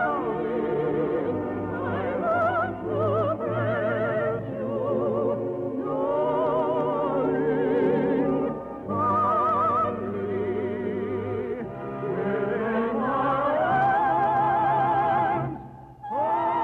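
Operetta singing: a trained voice with wide vibrato over orchestral accompaniment. The music drops briefly near the end before a new phrase begins.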